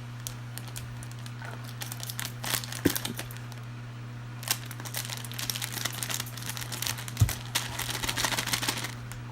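A sealed blind bag crinkling in the hands as it is squeezed and felt to guess the toy figure inside, in irregular bursts that start about two seconds in and keep up through the second half.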